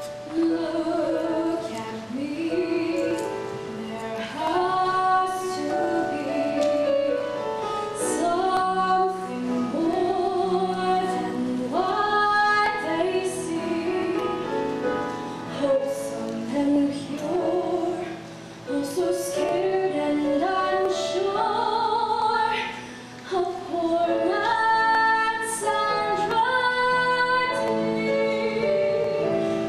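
A young woman singing a solo show tune with long held notes, over a sustained musical accompaniment.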